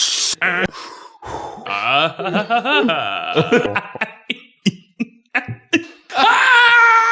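A man making sound effects with his voice: a short hiss, then a warbling note that wavers rapidly up and down, a run of short sharp mouth pops, and a held note near the end.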